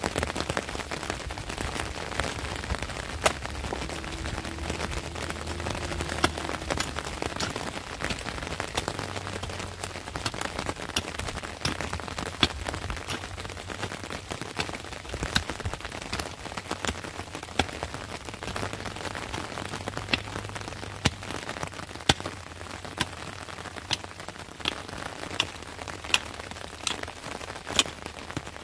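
A mattock chopping into wet, stony soil: a sharp strike every second or so, coming faster near the end, over a steady patter of light rain.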